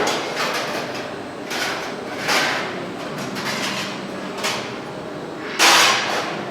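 Speed 200 CNC slant-bed lathe at work: a steady machine hum broken by about six short hissing, scraping bursts, the loudest shortly before the end.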